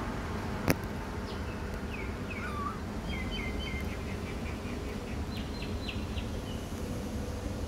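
Small bird chirping in quick runs of short, high notes over a steady low background rumble, with one sharp click just under a second in.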